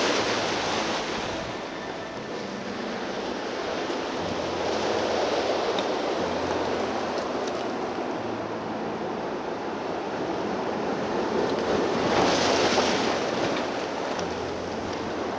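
Sea surf breaking and washing over rocks at the shoreline, swelling louder twice, near the start and about twelve seconds in, with wind rumbling on the microphone.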